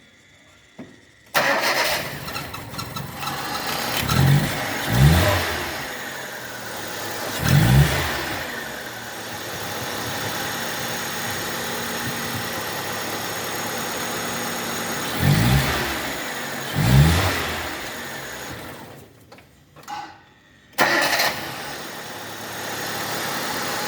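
A car engine starts and idles, with several short blips of the throttle, while the freshly tightened alternator belt is tested for slipping. Near the end it stops briefly and starts again, then idles steadily.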